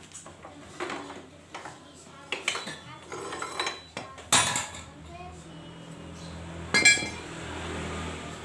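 Metal hand tools and engine parts clinking and clanking as a motorcycle engine is taken apart by hand. The loudest clank comes about four seconds in, and a ringing metallic clink comes near seven seconds.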